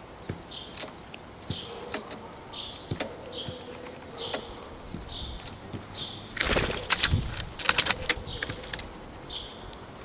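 Red-bellied woodpecker pecking at a seed cake: sharp single taps every half second or so, with a short high chirp repeating in the background. About six and a half seconds in comes a louder flurry of wingbeats and taps lasting a second or two.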